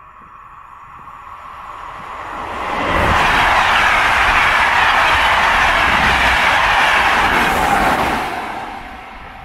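SNCF Corail passenger train passing at speed. Its wheel-on-rail rolling noise grows as it approaches, stays loud for about five seconds as the coaches go by, then fades.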